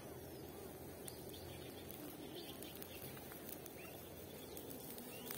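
Small birds chirping now and then over a steady low rushing background.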